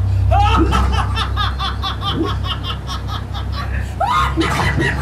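A woman laughing hard in a quick run of short bursts, with a steady low hum underneath.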